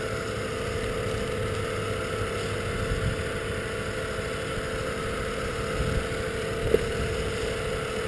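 Small engine idling steadily at an even pitch, with a brief click near the end.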